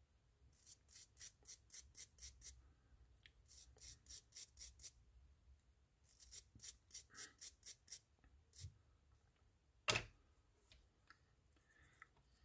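Small brass wire brush scrubbing a fishing reel's pinion gear clean: short scratchy strokes at about four a second, in three runs with pauses between. About ten seconds in there is a single louder knock, followed by a few faint clicks.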